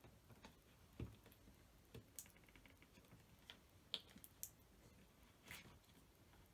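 Faint, scattered clicks and taps from hands handling the battery pack and its wires in the battery box, about six over several seconds, one near a second in with a soft thump.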